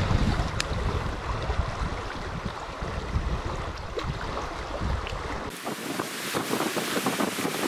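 Wind buffeting the microphone over the rush of river water. About five and a half seconds in the low rumble cuts out suddenly, leaving a brighter hiss of water with small ticks.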